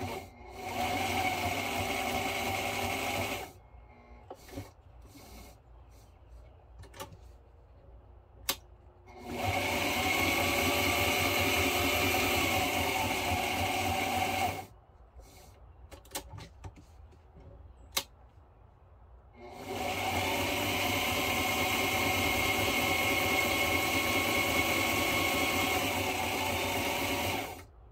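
Electric sewing machine stitching in three runs, about three, five and eight seconds long, the motor speeding up as each run begins. In the pauses between runs there are light clicks and handling noises as the work is repositioned.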